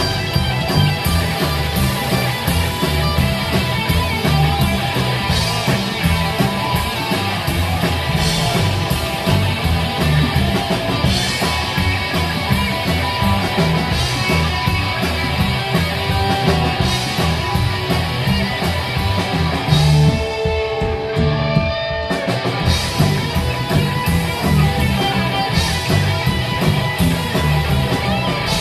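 Live psychobilly band playing an instrumental passage: electric guitar over slapped upright double bass and a drum kit, with no singing. About twenty seconds in, the bass and drums stop for about two seconds, leaving sustained guitar notes, then the full band comes back in.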